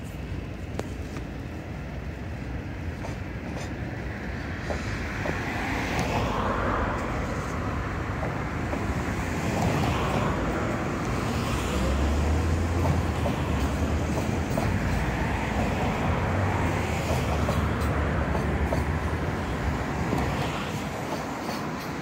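Container freight train's wagons rolling past on the rails: a steady rumble and clatter of wheels that grows louder partway through.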